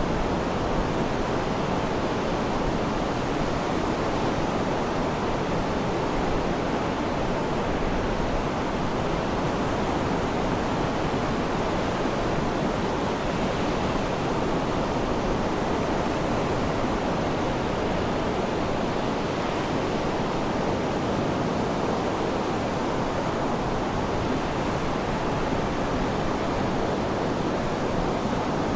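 Sea surf as an even, continuous rushing wash, with no separate waves breaking or swelling.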